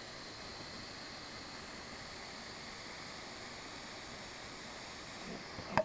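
Butane torch with a ceramic heating tip hissing steadily as it heats plastic welding rod. A brief sharp noise near the end.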